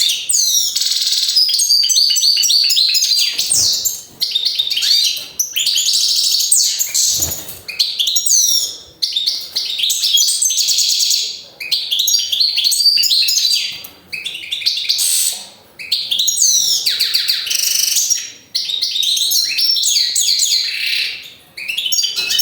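European goldfinch singing close up: rapid, high twittering and trilling song phrases in bouts of a few seconds, with short breaks between them.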